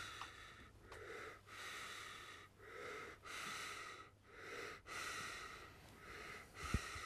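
A person breathing close to the microphone: steady, audible breaths in and out, about one every three-quarters of a second. A soft low bump near the end.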